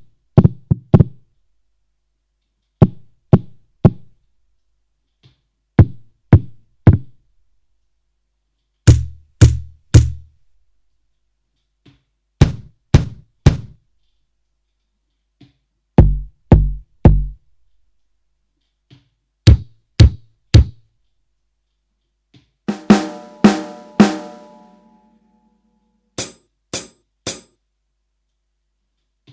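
Finhol Stompcon foot-percussion box played one sound after another, each struck three times in a quick group with a pause of a couple of seconds between groups. The sounds change from deep bass-drum thumps to snare-like cracks, a group with a ringing pitched tone, and sharp high clicks near the end.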